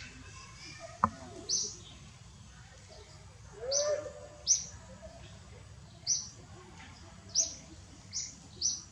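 Bird chirping: short, high-pitched chirps repeated roughly once a second, with a sharp click about a second in and a lower, curving call near the middle.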